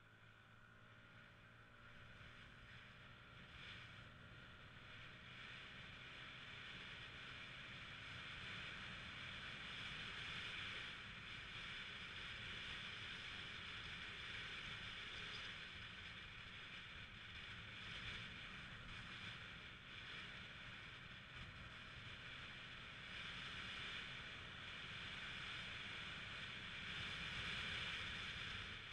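Yamaha 125cc single-cylinder four-stroke scooter under way, heard faintly through an action camera: a steady rush of wind and road noise over the low engine hum. The engine note rises as the scooter pulls away, and the rushing grows louder over the first several seconds as it gathers speed.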